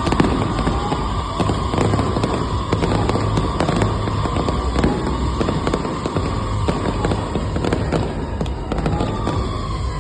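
Aerial fireworks going off in quick succession: dense bangs and crackling, with whistles that glide in pitch.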